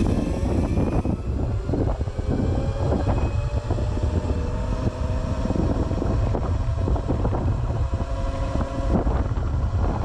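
Wind rushing over the microphone of a Razor electric dirt bike at about 30 mph, with the thin whine of its Kunray 2 kW motor under Kelly controller drive climbing slowly in pitch as the bike keeps accelerating.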